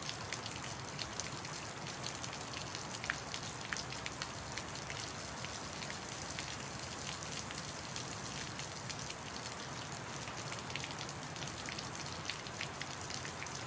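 Television static: a steady hiss with scattered crackles and pops.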